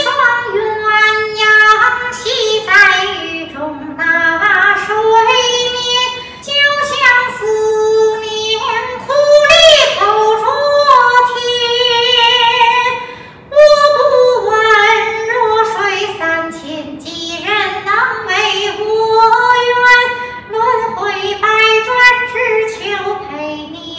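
A woman singing a Chinese ballad in xiqiang, the Chinese-opera-style singing voice, in long phrases with sliding pitch and held notes with vibrato.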